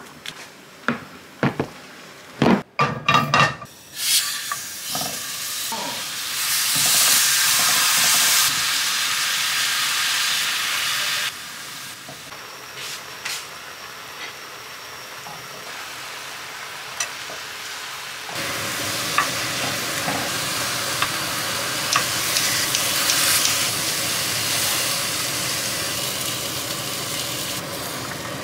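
A few knocks and clatters in the first few seconds. Then marinated beef short ribs (LA galbi) sizzle in their bubbling sauce in a frying pan, with the light clicks of tongs. The sizzle drops suddenly about a third of the way in and steps back up later.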